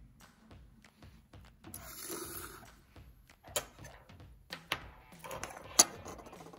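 Hands handling small electronics boards on a wooden desk: a short rustling scrape, then several sharp plastic clicks and taps, the loudest near the end, as a micro:bit is set down and pressed.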